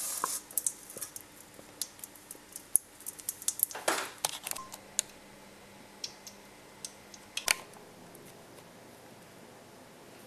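Wooden spoon tapping and scraping in a stainless steel bowl of melting fat: scattered sharp clicks and a short scrape about four seconds in, with one louder click about seven and a half seconds in.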